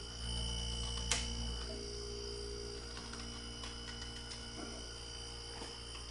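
Refrigerator compressor, used as a homemade air compressor, running with a low steady hum, plus one sharp click about a second in.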